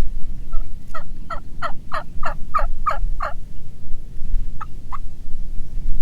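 Turkey yelping: a run of about eight rising notes at roughly three a second, then two short single notes near the end, over low wind rumble on the microphone.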